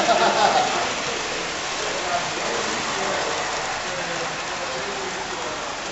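Large-scale model train running past on metal track: a steady rushing rattle of wheels on the rails.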